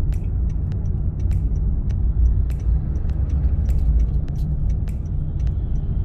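Car cabin while driving: a steady low rumble of engine and road noise, with scattered light ticks throughout.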